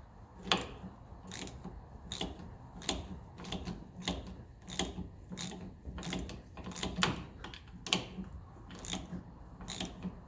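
Socket ratchet wrench clicking as it undoes a 13 mm nut on a dynamo bracket: a run of sharp, unevenly spaced ratchet clicks, about one or two a second, over a low hum.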